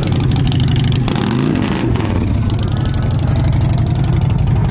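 A car engine running with a rapid, even exhaust rumble, its pitch rising and falling briefly about a second in.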